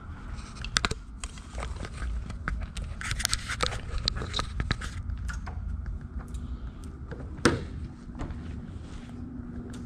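Handling noise from a handheld camera: scattered clicks, knocks and rubbing over a low steady rumble, with the sharpest knock about three-quarters of the way through.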